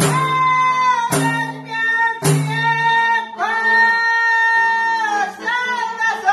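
Albanian folk ensemble playing live: singing with violin, long-necked lutes, accordion and frame drum. The beat and low accompaniment drop out about three seconds in, leaving long held melody notes.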